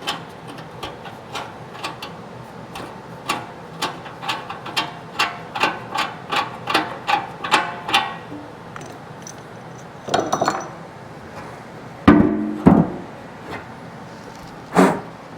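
A hammer tapping on steel around a freshly welded drain-plug nut in an oil pan, about two or three ringing taps a second, then a few heavier knocks and clatters in the last seconds.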